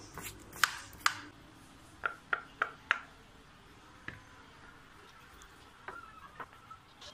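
Silicone pop-it fidget toy's bubbles being pressed: short soft pops, four in quick succession about two seconds in and a few more near the end. A few sharper clicks come in the first second.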